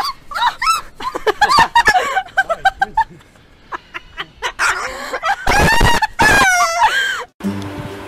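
White cockatoo calling and screeching in a string of short calls that bend in pitch, with a louder run of drawn-out screeches past the middle. Near the end this cuts off suddenly and acoustic guitar music starts.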